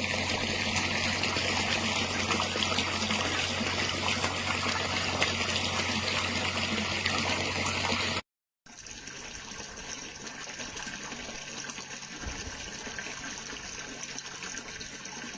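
Water pouring and splashing steadily from a hot-tub waterfall spout, over a low steady hum. After a short break about eight seconds in, the water is softer and the hum is gone.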